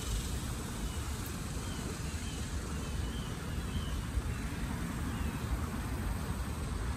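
Steady low rumble of wind on the microphone, with a bird giving short, faint chirps several times.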